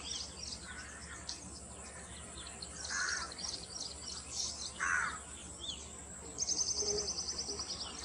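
Several wild birds calling in a marsh: a steady scatter of high chirps, two louder, harsher calls about three and five seconds in, and a rapid, even, high trill lasting just over a second near the end.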